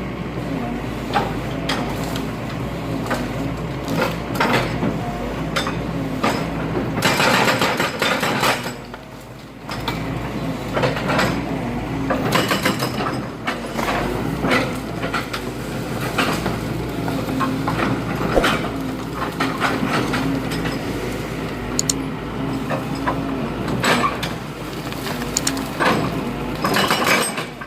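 Excavator's engine running steadily under irregular clanks and knocks of demolition, from the hydraulic hammer and broken concrete, with a louder stretch of crashing about seven seconds in.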